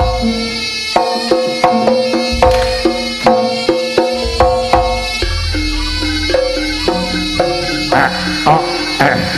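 Live Javanese gamelan accompanying a jaranan dance: metal-keyed instruments and gongs struck in a steady quick beat with kendang drums, and deep booms about at the start, two and a half seconds in and five seconds in.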